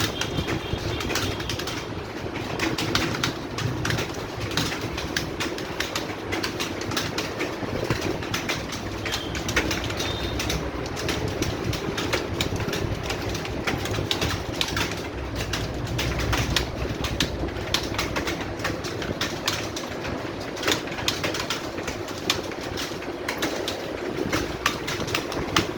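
Many computer keyboards being typed on at once: a dense, continuous clatter of key clicks.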